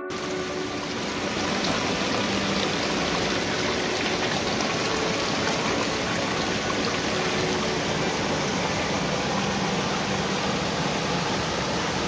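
River water rushing over stones in a shallow, rocky riverbed with small rapids: a steady, even rush.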